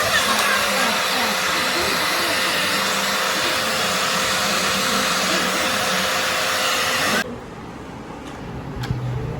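Handheld hair dryer blowing steadily with a faint steady whine, then cutting off suddenly about seven seconds in; a few light clicks follow.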